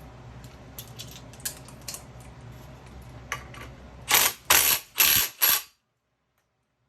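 Light clicks of tools on the GY6 variator, then four short, loud bursts from an impact wrench running the 17 mm variator nut down. The sound cuts out abruptly right after.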